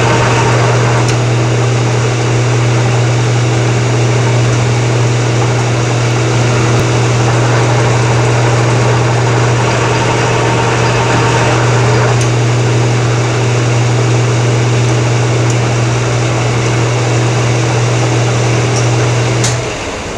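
Metal lathe running under power: the spindle and gear train turn with a steady deep hum and a higher whine while a boring bar takes threading passes inside a bore for a two-start internal thread. Near the end the motor is switched off, and the sound falls away as the chuck coasts to a stop.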